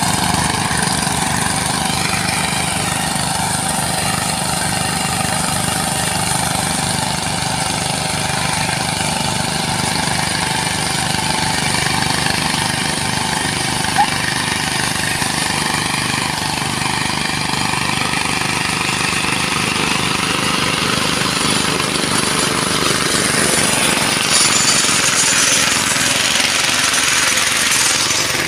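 Power tiller engines running steadily under load with a fast, even chugging, as the tillers cultivate soil between sugarcane rows.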